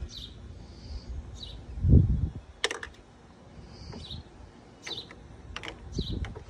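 Hard plastic toy cups and boats clacking against each other and the plastic water table, with a loud low thump about two seconds in. Short bird chirps repeat in the background.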